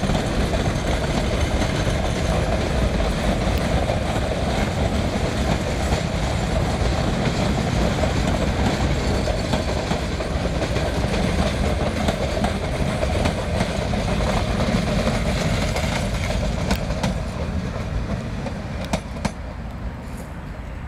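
Metre-gauge passenger coaches rolling past steadily on the track, fading away over the last few seconds as the train draws off, with a few sharp clicks as it fades.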